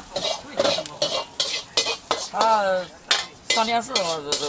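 Metal utensil clanking and scraping against a pan as food is stirred and fried, with sizzling underneath. A person's voice sounds briefly in the middle and again near the end.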